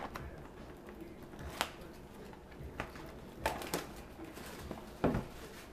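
Handling noise from cardboard trading-card boxes: a handful of short, light knocks and taps, the loudest about five seconds in.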